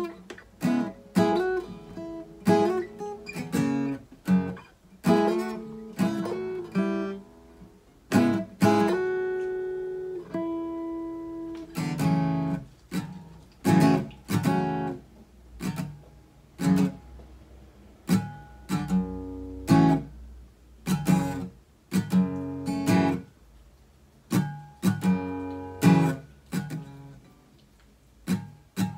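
Acoustic guitar played in stop-start phrases of plucked notes and strummed chords, with uneven pauses and one longer ringing chord about nine seconds in, as a difficult passage is worked out in practice.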